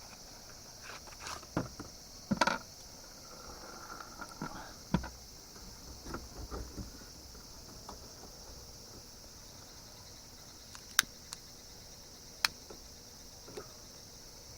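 Steady high-pitched chirring of insects, with scattered knocks and clicks over it, including two sharp clicks near the end.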